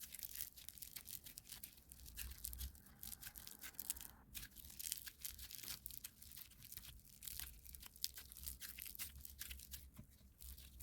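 Kinetic sand crunching and crumbling as it is worked: a dense run of soft, crisp crackles, with a short pause about four seconds in.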